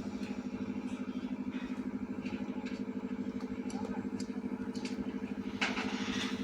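An engine running steadily with a fast, even throb, and a brief rush of noise about five and a half seconds in.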